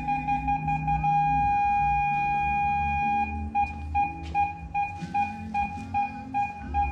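Parking-sensor buzzer beeping a high tone about three times a second, merging into one continuous tone for about two seconds from a second in as the obstacle comes closest to the rear bumper, then beeping again as it moves off.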